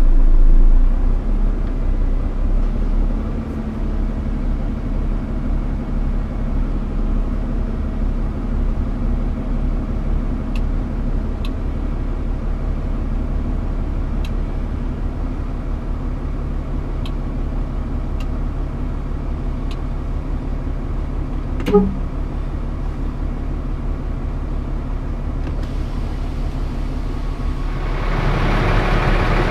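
Scania R410 concrete truck's diesel engine running steadily, with a few faint ticks and one sharp click about two-thirds of the way through. Near the end the sound grows louder and fuller.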